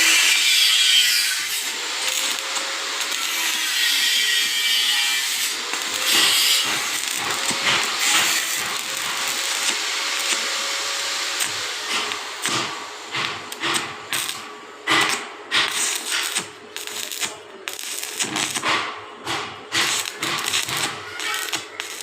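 Stick (arc) welding on rectangular steel pipe: a steady sizzling hiss of the arc, which about halfway through breaks into irregular sharp crackles and pops.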